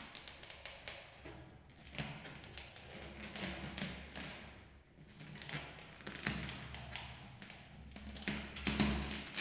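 Double bass sounded with a handheld object worked against its strings: low, droning string tones that swell and fade, under irregular scraping, tapping and clicking.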